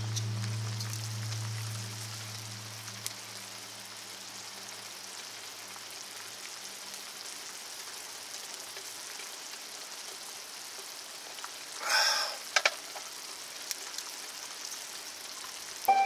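Pot of water boiling on a small camp stove, a steady bubbling hiss. About twelve seconds in there is a short, loud clink.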